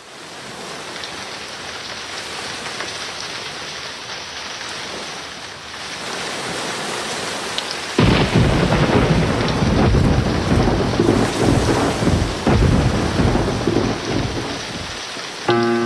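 Recorded rain and thunder opening a dance's music track: steady rain hiss, then a sudden clap of thunder about halfway through that rumbles on for several seconds. Just before the end a musical chord comes in over the rain.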